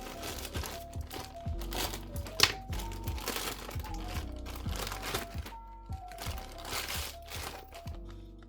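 Lo-fi background music with a soft beat, over repeated crinkling of packaging being handled, with a sharp click about two and a half seconds in.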